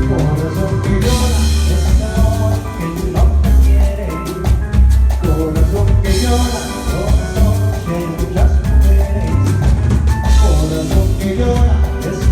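Loud Latin dance music with drums and a heavy bass line, played through a large sound system during a sound check.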